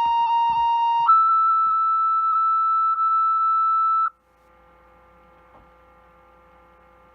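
Two-tone sequential fire-dispatch paging tones over a radio: a steady lower tone steps up about a second in to a higher steady tone, held about three seconds before it cuts off. A faint steady radio hum follows.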